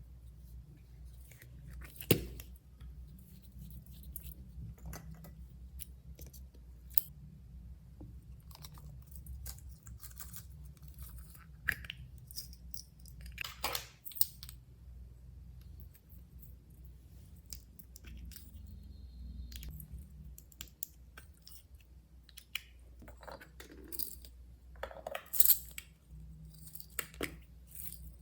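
Slime being mixed and kneaded by hand: irregular sticky clicks, pops and short crackles, over a faint low hum.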